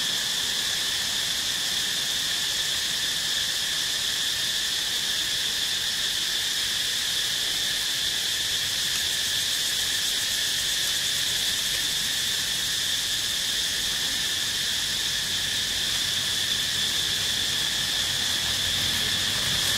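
Insects buzzing in a steady, high-pitched chorus.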